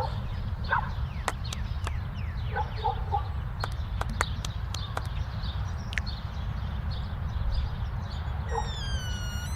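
Steady low hum with scattered sharp clicks and faint bird calls, short chirps and a longer falling call near the end.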